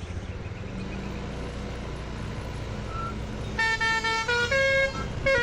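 A bus engine runs steadily. About three and a half seconds in, an Indonesian 'telolet basuri' multi-tone bus horn starts playing a tune of short notes that step up and down in pitch.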